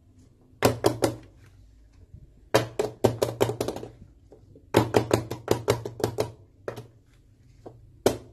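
Metal loaf pan full of cake batter tapped down repeatedly on a countertop to settle the batter: three bursts of quick sharp knocks, about five a second, then a few single knocks near the end.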